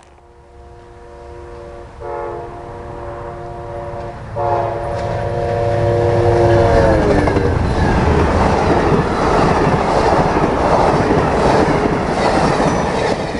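A passing train's multi-tone air horn sounding, stepping louder about two seconds in and again at about four and a half. Its pitch drops as the locomotive goes by, and then the steady loud noise of the train rolling past takes over.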